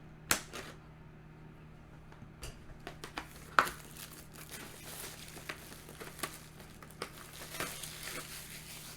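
Plastic packaging crinkling and tearing as a trading-card booster box is handled and unwrapped, with a sharp click a moment in and a louder one about three and a half seconds in, then a steady run of small crinkles.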